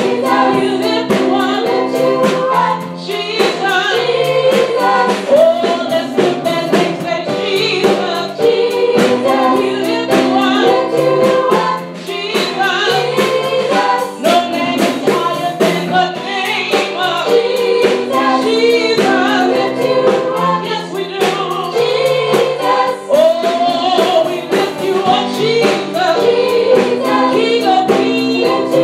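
Three women singing a gospel praise song together through microphones, over instrumental accompaniment with a steady beat.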